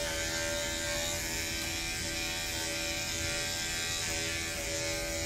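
Andis five-speed corded pet clipper running with a steady, even buzz as it trims the fur under a dog's chin.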